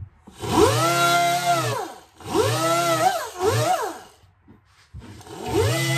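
Handheld power grinder dressing the edge of a fresh weld, run in short trigger bursts. It spins up to a steady whine for about a second and a half and winds down, then gives a shorter burst and a brief blip. After a pause of about a second it starts again near the end.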